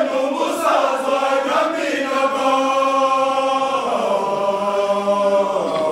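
Mixed choir of women's and men's voices singing a Kinyarwanda song, holding long sustained notes.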